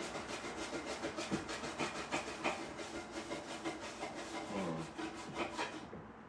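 Pots, pans and dishes being handled and scrubbed at a sink, with rapid clinks, knocks and scraping that stop shortly before the end.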